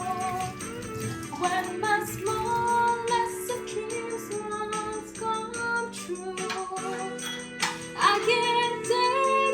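Background music: a song with a melodic vocal-like line over a steady percussive beat.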